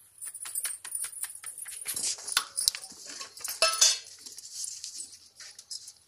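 Open fire crackling in a clay chulha, with metal tongs scraping and clinking against the stove as fuel is pushed into the flames. A couple of louder clatters come about two seconds and about four seconds in.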